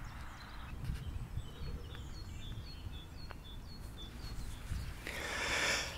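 A small bird calling a run of short, high, evenly spaced chirps over a low background rumble, with a brief hiss near the end.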